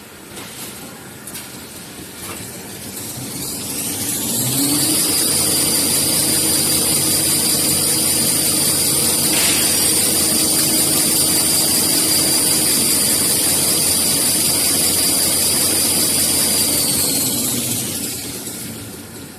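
Tissue-paper rewinding machine winding a log of toilet or kitchen-towel paper: it spins up over a couple of seconds, runs at speed with a steady high whine over a lower hum, then slows and winds down near the end. The run-up, steady run and run-down are one winding cycle of the log.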